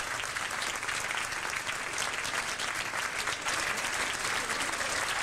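Audience applauding, a dense and steady wash of many hands clapping.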